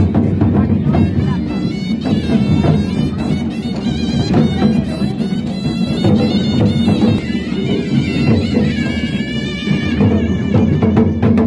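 Loud traditional music: a reed wind instrument playing a wavering, nasal melody over steady drumming.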